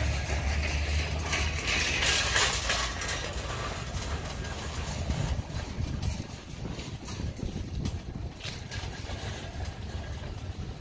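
Heavily loaded wire-shelf plant cart rolling over concrete pavement: a low wheel rumble with irregular rattling of the metal frame, briefly louder about two seconds in.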